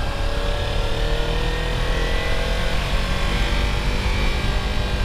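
Sport motorcycle's engine running as the bike is ridden at low speed, its pitch rising gently through the first half and then holding steady.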